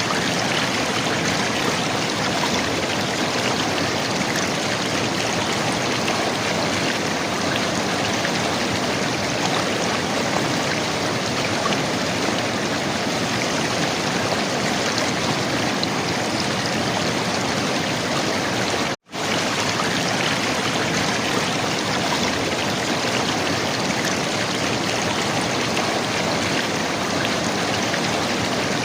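River water flowing and gurgling, a steady rush of water. It cuts out to silence for an instant about two-thirds of the way through, then carries on unchanged.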